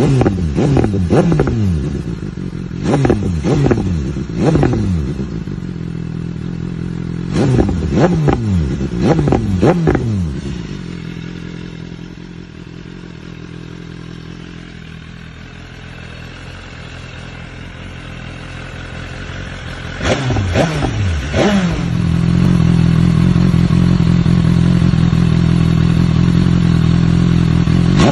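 2018 BMW S1000RR inline-four revved at standstill through an SC Project exhaust. Repeated quick throttle blips fall back with pops and crackles, then it idles quietly for several seconds. Near the end, after two more blips, the revs are held steady and loud.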